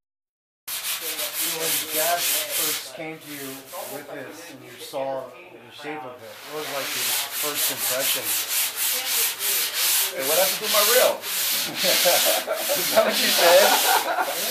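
A sanding block worked by hand along a surfboard rail, shaping the rail. The strokes rasp back and forth several times a second, start abruptly just under a second in, and come faster and denser after about six seconds.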